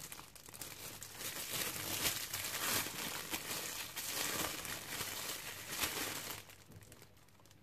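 Thin clear plastic bag crinkling as hands turn a large piece of raw meat inside it, a run of irregular small crackles. It dies away about a second before the end.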